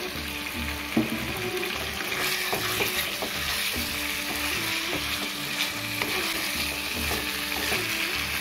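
Spice masala sizzling in a nonstick wok as small fried potatoes are tipped in and stirred with a wooden spatula: a steady sizzle broken by scattered scrapes and knocks of the spatula, with a sharper knock about a second in.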